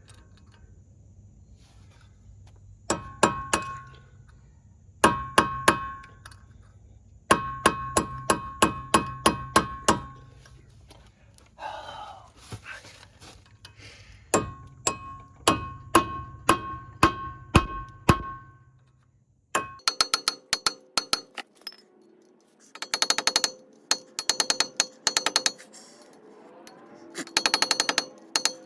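A hammer striking metal in runs of blows, several a second, each blow leaving a short metallic ring. About two-thirds of the way in the blows turn faster and denser, with a higher ring.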